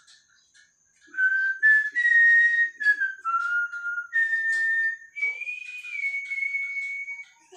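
A person whistling a simple tune by mouth, one clear note at a time, held and stepping up and down, starting about a second in and stopping just before the end. Faint clinks of kitchenware sound underneath.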